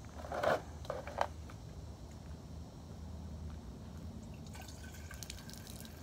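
A few handling knocks early on, the loudest about half a second in, then from about four and a half seconds in diesel fuel streams out of a tractor power steering reservoir's outlet and spatters onto the dirt.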